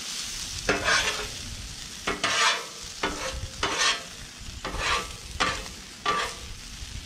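Metal spatulas scraping and chopping across a hot Blackstone flat-top griddle, turning shredded hash browns, in sharp strokes about once a second over a steady sizzle of frying.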